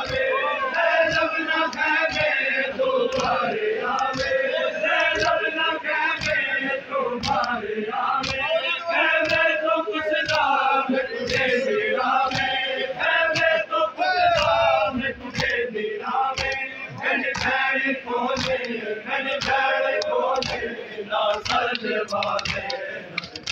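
Crowd of men chanting a Muharram mourning lament (noha) together, with rhythmic chest-beating (matam): sharp hand slaps a little more than once a second, in time with the chant.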